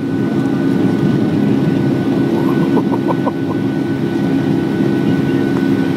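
Airliner's jet engines at takeoff thrust, heard from inside the cabin as the plane leaves the runway and climbs: a loud steady drone with a thin steady whine above it.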